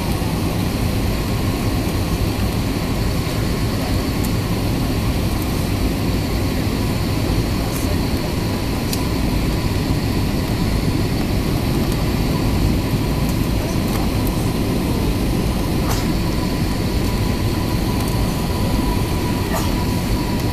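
Steady cabin noise inside an Airbus A320neo airliner descending through cloud: the engines and the rush of air along the fuselage make a constant low roar, with a faint steady hum above it.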